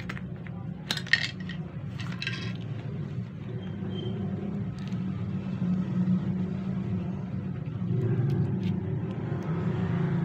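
Plastic parts of an HP 80A laser toner cartridge clicking and knocking as they are pried apart and handled, with the sharpest knocks about a second and two seconds in, over a steady low rumble.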